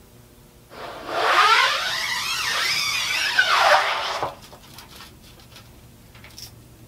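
Metal scoop coater dragged up an emulsion-coated screen-printing mesh in one smooth stroke: a scraping drag with a wavering squeal, starting about a second in and lasting about three seconds.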